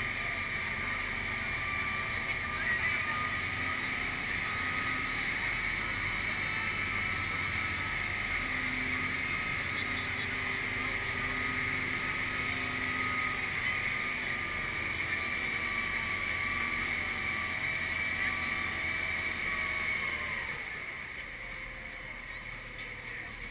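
Amphibious truck's engine running steadily as it motors through the water, with water rushing along the hull. Near the end the engine note falls and the sound gets quieter as it throttles back.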